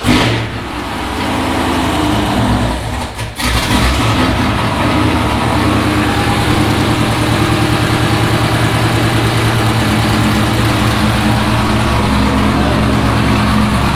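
Corvette V8 catching right at the start and running loud at idle through stainless headers with no catalytic converters, on an untuned engine. It dips briefly about three seconds in, then settles into steady running.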